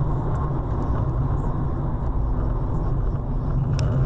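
Steady low rumble of road and engine noise inside a moving car, picked up by a windscreen dashcam, with one short click near the end.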